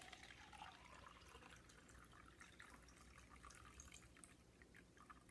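Faint trickle of water poured in a thin stream from a glass beaker into a plastic cup.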